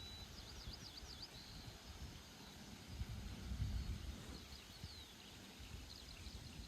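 Steady rain hiss with irregular low rumbles, while a small bird gives quick high chirps about a second in and a few more in the second half.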